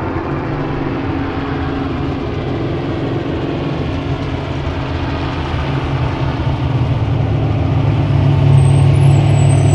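Off-road race truck's engine running steadily, growing louder over the last few seconds as the truck pulls into the pit.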